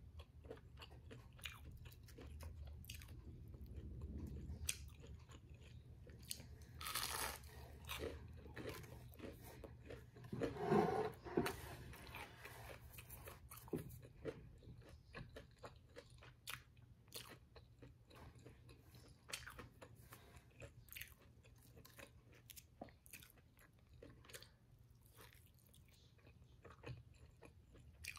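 Close-miked eating of battered fried food: crunchy bites and chewing, with many small crackles, a louder crunching bite about seven seconds in and another around ten to twelve seconds in.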